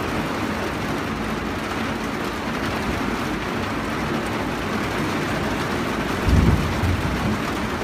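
Steady rain falling outside a window, a constant even hiss, with a brief louder low rumble about six seconds in.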